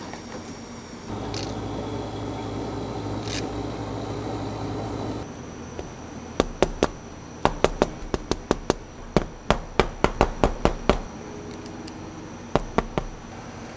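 A soft-serve ice cream machine hums steadily for about four seconds as it dispenses. Then comes a fast, irregular run of sharp clicks and light knocks, about twenty in five seconds, with a few more near the end, from a plastic scoop knocking against a plastic bottle as crumble topping is added.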